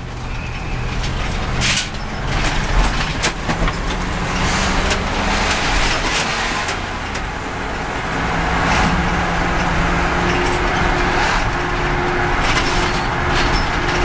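A vehicle driving on a road, heard from inside the cab: steady engine and tyre noise, with a few brief clicks.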